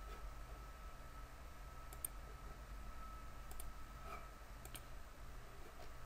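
A few faint computer mouse clicks, about two, three and a half and almost five seconds in, over a steady low electrical hum.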